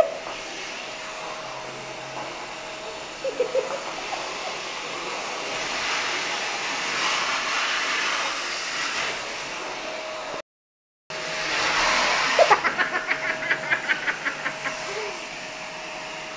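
Vacuum cleaner running steadily with a constant whine, joined by a few short pitched sounds about three seconds in. The sound drops out completely for about half a second just after ten seconds, then a quick run of sharp taps or yaps follows, about five a second, for a couple of seconds.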